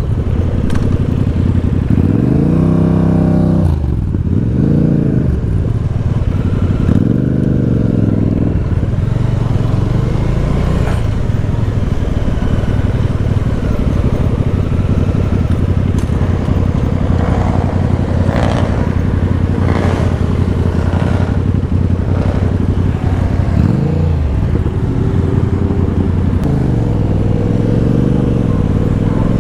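Motorcycle engine and exhaust on the move, revving up and dropping back several times in the first eight seconds, then running at a steady pitch for a long stretch before rising and falling again near the end.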